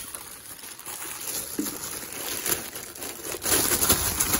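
Plastic crinkling and rustling as artificial plants are handled and pushed into a tarantula enclosure, irregular with scattered light taps, louder near the end.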